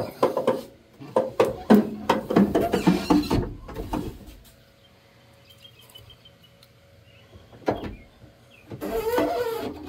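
Truck door window being rolled up through its regulator: a run of irregular clicks and scraping for about four seconds, then a quieter stretch with a faint hum, and a single knock near the end.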